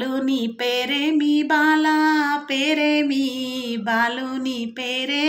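A woman singing a Telangana folk wedding song unaccompanied, holding long drawn-out notes with short breaks between phrases. It is the song sung while turmeric is rubbed on the bride and groom before their bath.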